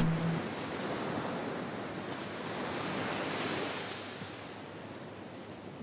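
Ocean surf breaking and washing up a beach: a steady rush that slowly grows quieter.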